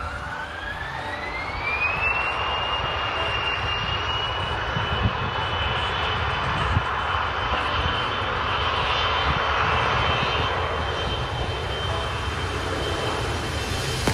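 Twin rear-mounted General Electric CF34 turbofans of a Bombardier CRJ regional jet spooling up to takeoff thrust. A whine rises in pitch over the first two seconds, then holds steady as the jet accelerates down the runway, with wind rumbling on the microphone.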